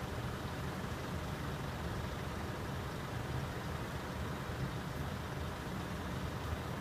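Diesel coach engines idling while the coaches stand parked with engines left running: a steady low rumble.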